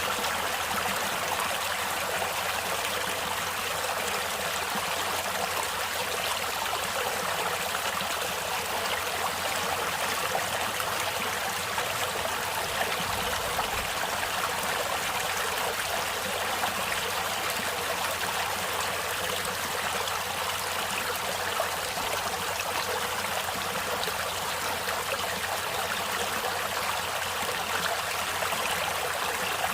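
Natural flowing water: a steady, even rush with no breaks or changes.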